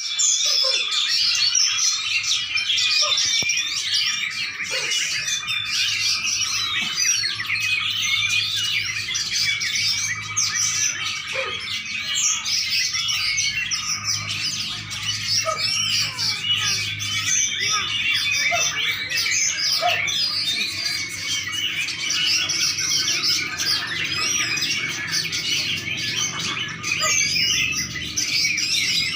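A songbird singing without a break, a busy, continuous stream of high chirps and trills.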